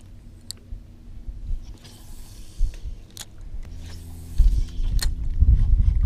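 Electric trolling motor humming steadily, with a few sharp clicks and, from about two-thirds of the way in, low rumbling buffets.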